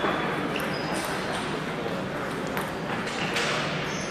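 Table tennis balls clicking off bats and tables, irregular sharp ticks from several tables at once, over a steady murmur of background voices.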